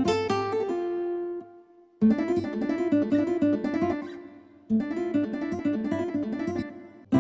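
Yamaha Tyros arranger keyboard playing a sampled acoustic guitar voice as plucked phrases. One phrase dies away about a second and a half in. After a short gap the keyboard plays a similar phrase twice in a row, with a brief pause between them.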